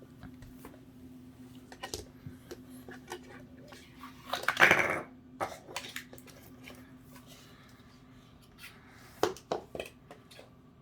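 Scattered clicks and knocks of containers and dishes being handled. A louder scraping rustle comes about halfway through, and a few sharper knocks near the end.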